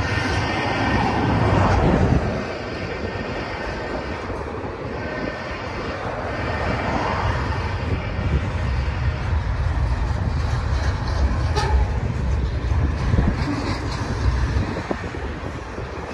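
Double-stack intermodal well cars rolling past at low speed: a steady rumble of steel wheels on rail, with a few sharp clanks in the second half.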